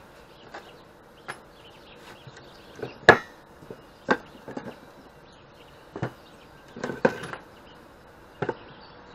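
Wooden blocks, a flat steel bar and steel chain being handled and set down on a wooden workbench: a string of irregular knocks and clanks, the loudest about three seconds in and a quick cluster near seven seconds.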